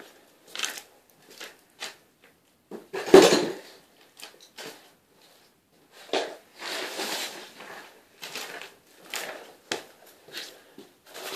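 Clattering and knocking of hand tools being handled and set down, with one sharp knock about three seconds in and stretches of rustling between.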